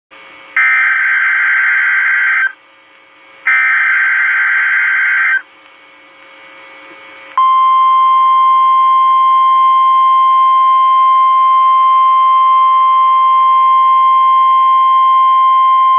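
NOAA Weather Radio emergency alert from station KGG95, announcing a tornado watch. It opens with two bursts of SAME digital header data tones, about two seconds each, with faint radio hiss between them. About seven seconds in, the steady single-pitched 1050 Hz weather radio alert tone begins.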